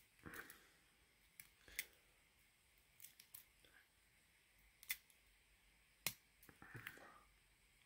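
Faint, scattered metallic clicks, roughly one a second, of a hook pick working the pins of a pin-tumbler lock cylinder under a tension wrench.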